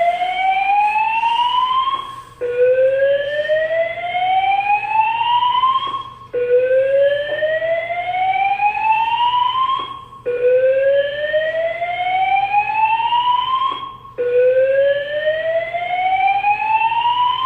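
Fire alarm sounding a slow whoop evacuation tone: a loud rising sweep that climbs for about four seconds, stops briefly and starts again, four times over.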